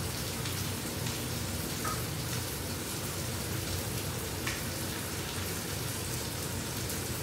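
Food sizzling in a hot frying pan: a steady hiss with scattered small crackles and pops, over a low hum.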